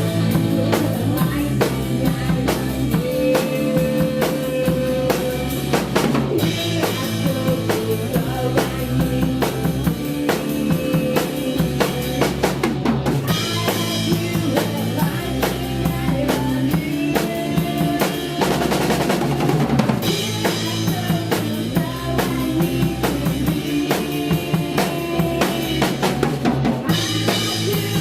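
A live grunge rock band playing, with the drum kit out front: steady kick and snare hits and rimshots over bass and electric guitar.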